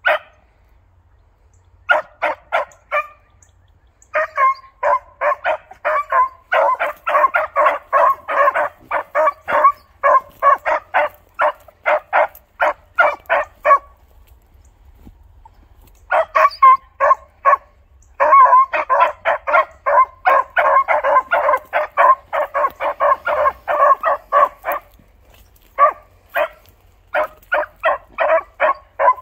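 Beagles giving tongue while trailing scent: long runs of short, rapid barks, several a second, broken by a pause of a couple of seconds about halfway through and a shorter one later.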